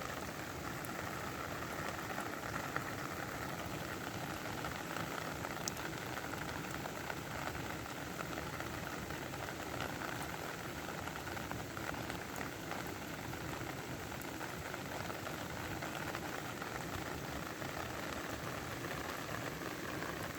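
Steady rain falling: a dense, even hiss with the patter of individual drops.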